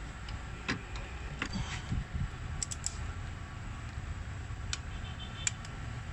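Scattered sharp metallic clicks from a torque wrench tightening the thermostat housing bolts on a Honda K24A engine to their 10 N·m spec, with a small cluster of clicks about two and a half seconds in. A low steady hum runs underneath.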